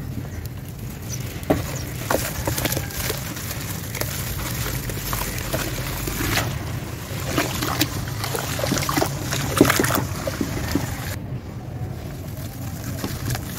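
Hands scooping and raking through a plastic tub of dry, gritty sand, letting it pour back through the fingers with a rustling hiss and many small crackles and a few sharper knocks. A low, steady hum runs underneath.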